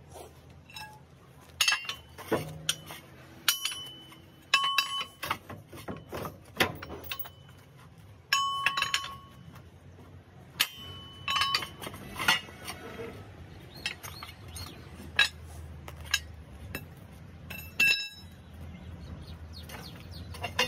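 Steel pry bar clanking against the steel track chain links and idler wheel of a Komatsu excavator's undercarriage, as the thrown track is levered back onto the front idler. It makes a series of irregular metallic clanks, several ringing briefly.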